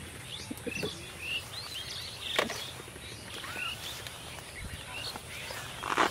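Small birds chirping and calling in short, quick notes, over a steady faint high hiss, with a few short sharp rustles or snaps, the clearest about two and a half seconds in.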